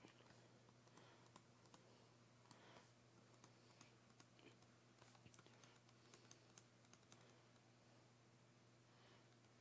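Faint, irregular clicks and taps of a stylus on a tablet as words are handwritten; they stop near the end.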